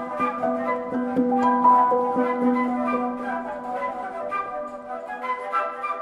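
Instrumental background music: a melody of short notes over a few held tones.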